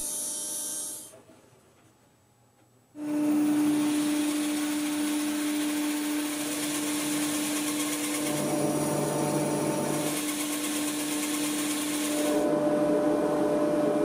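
Bandsaw cutting diagonally through a block of spruce: after about two seconds of near silence, the saw starts abruptly about three seconds in and runs on with a steady hum and the noise of the blade in the wood.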